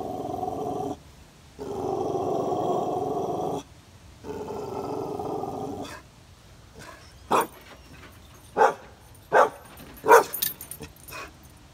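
Dog growling in three long, steady growls, then barking in short, sharp single barks from about seven seconds in, with quieter sounds between them. The dog is upset at the person it is facing.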